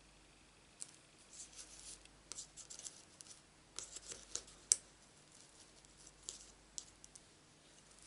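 Fingertips pressing and rubbing on paper card stock, pressing a freshly glued piece down: a run of faint, short scratchy rustles and clicks, the sharpest a little past halfway.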